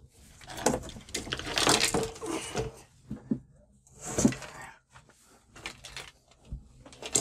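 Plastic sheets and panel parts inside an opened LED TV rustling and knocking as they are handled, in irregular bursts with a sharp click near the end.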